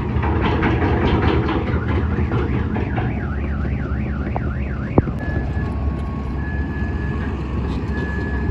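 An electronic reversing alarm cycles through its tones: rapid chirps, then a fast warbling siren, then long beeps alternating between a high and a lower note. Under it a heavy diesel engine runs steadily, and a single sharp click comes about five seconds in.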